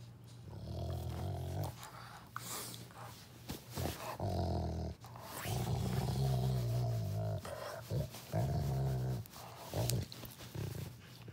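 Dog growling in several low, drawn-out grumbles, the longest lasting about two seconds, while mouthing a person's hand.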